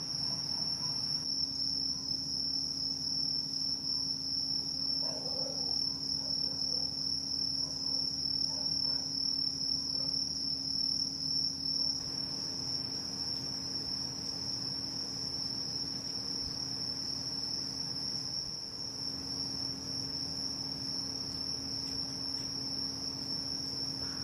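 A chorus of crickets chirring steadily in one unbroken high-pitched band, with a faint low steady hum underneath.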